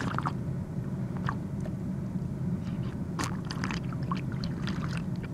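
Drinking sound effect: scattered wet gulping and swallowing clicks over a steady low hum.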